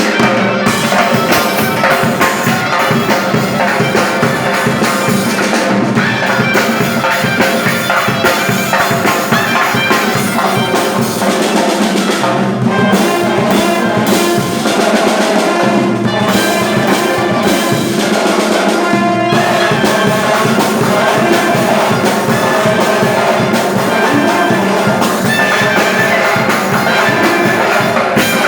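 Loud instrumental music: wind instruments playing a melody over drums, with no singing.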